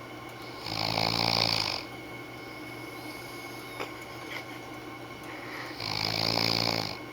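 A man snoring in his sleep: two loud snores about five seconds apart, each lasting about a second, a low buzz with a hiss of breath over it. The snoring is one the uploader puts down to his sinuses.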